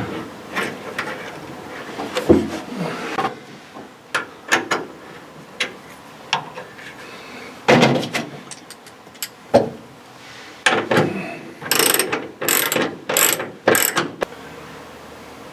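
Ratchet wrench clicking in short, irregular runs as a bolt is wound in, with a quicker, louder run of strokes near the end.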